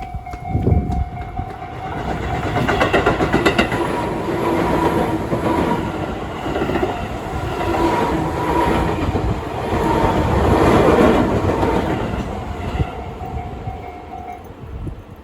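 A Tobu Tojo Line level crossing's warning bell rings steadily while a train passes over the crossing, its wheels clattering rhythmically over the rail joints from about two seconds in to about thirteen seconds in. The train is the loudest sound. The bell stops near the end as the crossing clears.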